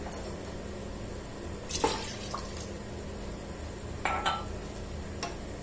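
Water going into a pressure cooker of tripe stew: a few brief splashes and light knocks against the pot, over a steady low hum.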